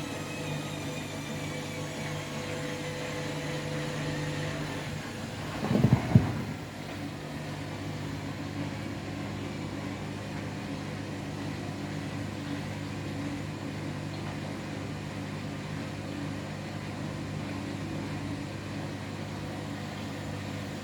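Washing machine spinning an out-of-balance load of two bathrobes: the motor's whine falls in pitch over the first few seconds, a burst of loud knocks comes about six seconds in, then the drum runs on with a steady hum.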